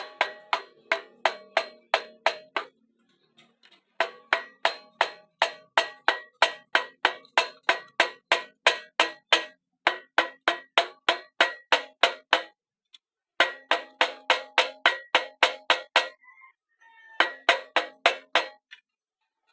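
Rapid hammer blows on metal, about four to five a second, in several runs with short pauses, each strike ringing with a clear metallic tone. This is the pressure washer pulley and its key being driven onto the motor shaft.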